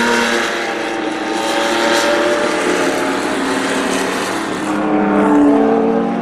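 Ferrari 512 M's 5-litre V12 racing engine heard onboard at speed, over wind and road noise. It holds a steady note, then rises in pitch about five seconds in as the car accelerates.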